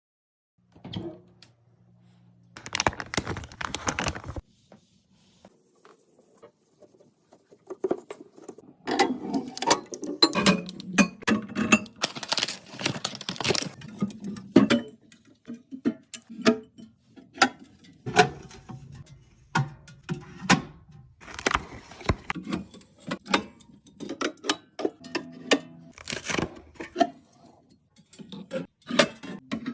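Packaged snacks, drinks and plastic containers being handled and set down while a mini fridge is restocked: an irregular run of clicks, knocks and crinkles.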